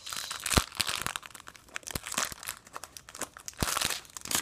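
Foil Pokémon booster pack wrappers crinkling and rustling in the hands, in irregular crackly bursts with a few sharp ticks among them.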